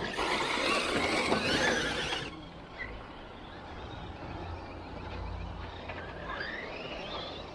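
Electric RC short-course truck running on a dirt track: a loud rush of motor whine and tyres for about two seconds that stops suddenly, then a fainter motor whine rising in pitch near the end as it accelerates again.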